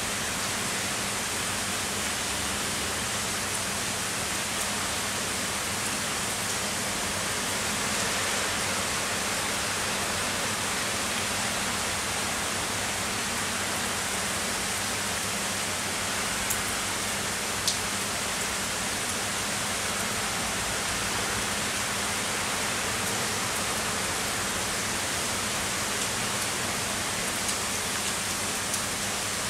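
Heavy summer rain falling steadily, an even hiss, with a few sharp ticks of drops near the middle and again near the end.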